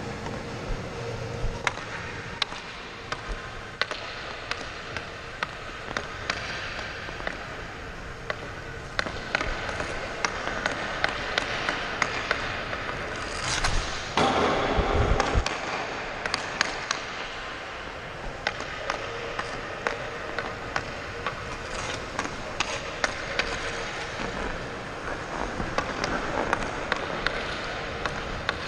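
Ice hockey skates scraping and gliding on rink ice, with frequent sharp clicks and knocks of a hockey stick handling pucks. A louder rush of noise comes about halfway through.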